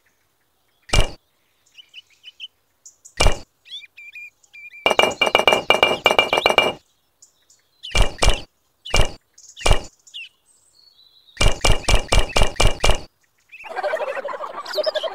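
Miniature clay bricks clinking and tapping as they are handled and set in place. There are single sharp clinks a second or two apart, and two quick runs of rapid clicks.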